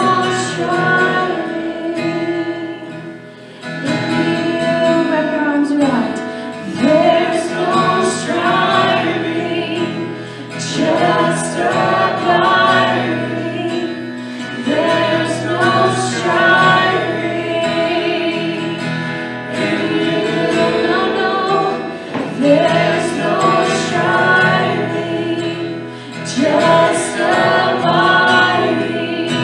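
A woman singing a slow worship song in phrases a few seconds apart, over held keyboard chords.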